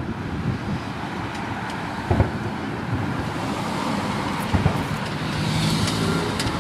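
Steady road traffic noise, with a few dull booms from distant aerial fireworks, about two seconds in and again a little past four seconds.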